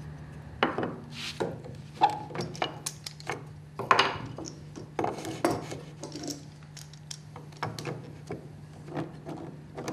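Wooden workpieces and metal clamps being handled on a workbench: scattered knocks and clicks, with a few louder taps about two, four and five and a half seconds in, over a steady low hum.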